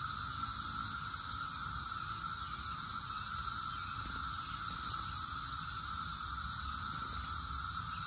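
Chorus of Brood X periodic cicadas: a steady, unbroken drone on one pitch with a high hiss above it.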